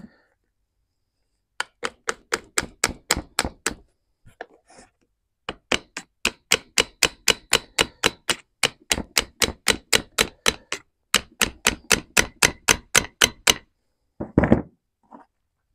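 Rapid, even hammer taps, about four or five a second, on a tractor piston to drive out its wrist pin, in three runs with short pauses, then one heavier thud near the end.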